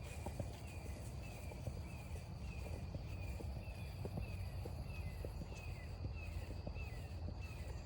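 Footsteps on a forest trail, with a short, high, falling chirp repeating about twice a second and a steady high-pitched hum behind them.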